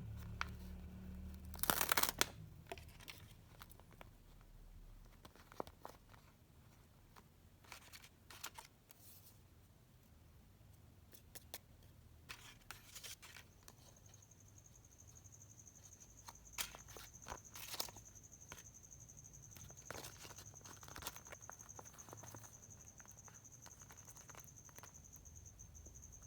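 Phone packaging being opened: plastic wrap tearing and crinkling, with scattered taps and clicks of handling. The loudest tear comes about two seconds in. From about halfway a faint steady high-pitched whine runs on.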